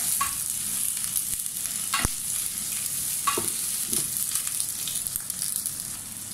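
Sliced onions sizzling steadily in hot oil in a stainless steel pan, stirred with a spatula that scrapes and knocks against the pan a few times.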